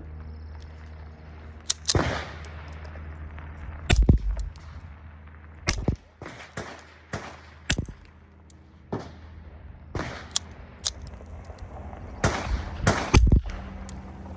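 Gunshots at a shooting range: about a dozen sharp reports at irregular spacing and of uneven loudness, the loudest about four seconds in and again near the end. They include the quiet reports of a suppressed .22 pistol firing subsonic rounds.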